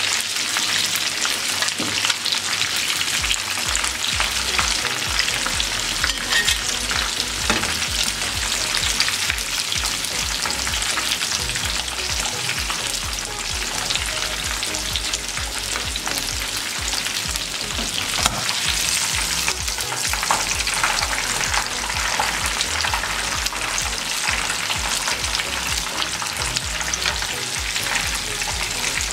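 Hot oil sizzling and bubbling steadily around batter-coated chicken wings deep-frying in a pan, the wings golden and done, with a few sharp clicks of metal tongs as pieces are lifted out of the oil.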